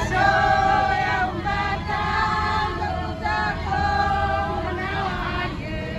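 Mostly women's voices singing a song, holding long notes and gliding between them, over a low steady rumble.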